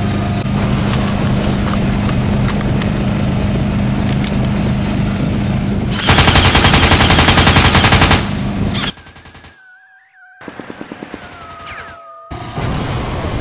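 Golf cart engine running, then a loud burst of rapid automatic gunfire lasting about two seconds. A quieter stretch follows with a thin steady tone and a shorter, weaker burst before the engine noise returns.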